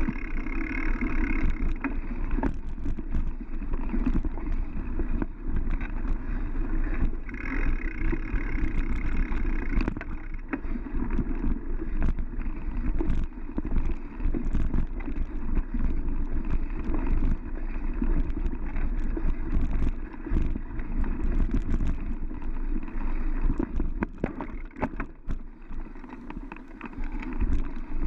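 Mountain bike rolling fast over a dirt forest trail, heard through a GoPro: a steady low rumble of tyres and wind on the microphone, with frequent rattles and knocks from the bike jolting over bumps.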